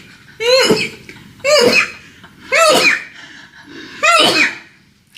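A woman sneezing four times in a row, about a second apart. Each sneeze is short and voiced.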